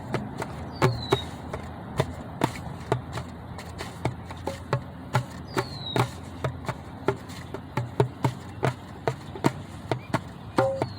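Drum hits, irregular and unsteady, about two to three a second. A bird gives a short, high, falling call three times, about five seconds apart.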